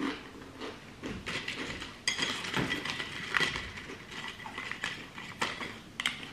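Close-up eating sounds: chewing, with irregular light clicks and taps of tableware.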